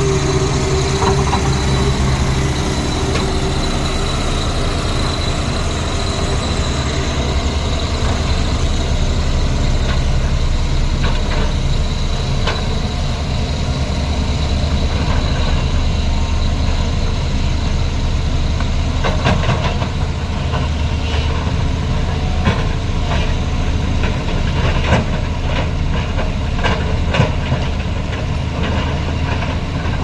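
Heavy diesel construction machinery running steadily: a Case 752 double-drum roller and a JCB tracked excavator. From about ten seconds in, scattered clanks and scrapes come from the excavator bucket digging into soil.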